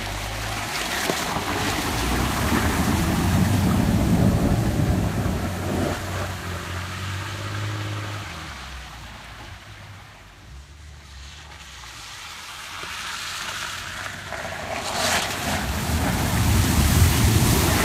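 Ford Falcon RTV ute engine pulling away and fading into the distance, then coming back louder. About fifteen seconds in, water rushes and splashes around the wheels as it drives through a flooded track crossing.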